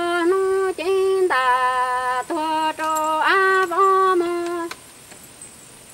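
A woman singing kwv txhiaj, Hmong sung poetry, as a single voice holding long notes with sliding pitch between them. The phrase ends about three-quarters of the way through, followed by a pause.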